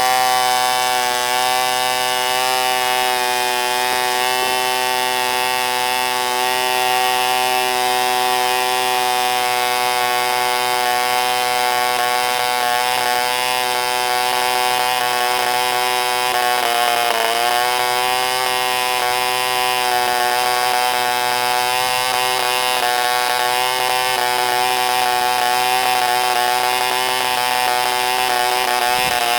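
MP Jet 0.6 cc model diesel engine running with a propeller at a steady high-pitched buzz. Its speed sags briefly about halfway through and recovers, with another slight dip near the end.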